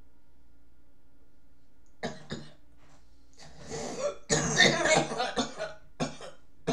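A man coughing: a short cough about two seconds in, then a harder run of rough coughs and throat clearing, with two more short coughs near the end.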